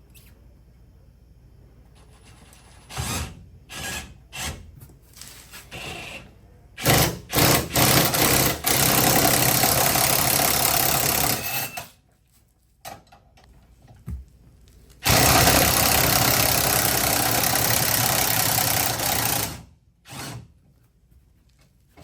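A power tool driving a truck scissor jack used as a bead breaker on a UTV tire. It runs in a few short blips, then in two long steady runs of several seconds that start and stop suddenly, as the jack pushes the tire bead off the beadlock wheel.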